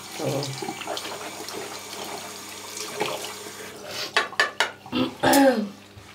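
Bathroom tap running into a sink while water is splashed onto a face, with a run of splashes about four seconds in and a short voiced sound among them near the end.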